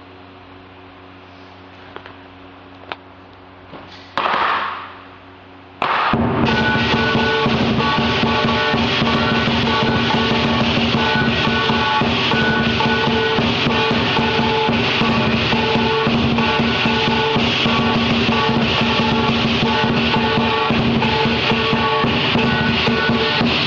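Lion dance percussion: a drum beaten in a fast, dense rhythm together with clashing cymbals and a ringing gong. It comes in loud about six seconds in, after a quieter stretch with a few taps and one short loud crash that fades away.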